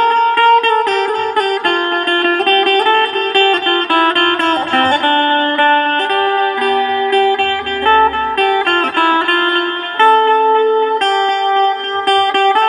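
Indian banjo (bulbul tarang), a keyed string zither, played through a portable amplifier: a continuous melody of plucked, metallic-stringed notes picked out on its keys.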